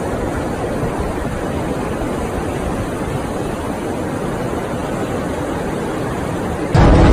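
Steady rushing noise of ocean surf and wind. It cuts off near the end, where music begins.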